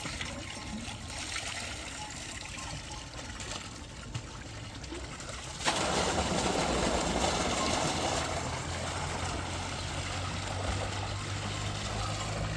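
Running water trickling, then about six seconds in it suddenly gets louder, becoming a steady rush of pouring water.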